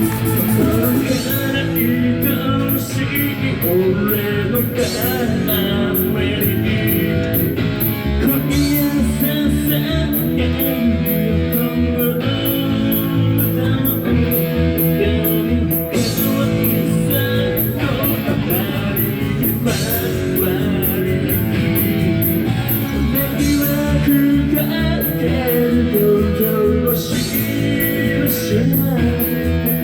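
Live rock band playing a song: electric guitar and drums with a steady beat, and a singer's voice over it.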